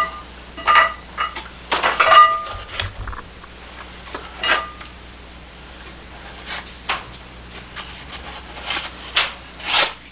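Several sharp metallic clinks, each ringing briefly, in the first half, followed by scraping and rustling handling noises, the loudest near the end.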